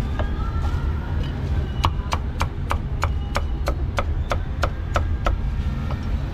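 Heavy meat cleaver chopping roast pork on a round wooden chopping block. A quick run of about a dozen strokes, roughly three a second, comes in the middle, with a few single chops before it.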